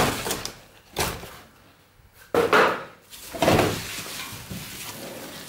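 Cardboard packing being pulled out of a long cardboard box: several sudden scrapes and knocks of cardboard against cardboard, the loudest a little over two seconds in, with rustling in between.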